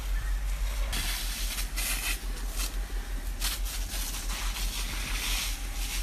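Forest fire burning close by: a loud hiss with crackles sets in about a second in, over a steady low rumble.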